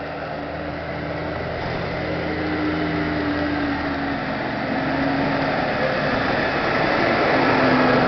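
Military cargo truck's engine running as the truck approaches and drives past close by, growing steadily louder toward the end.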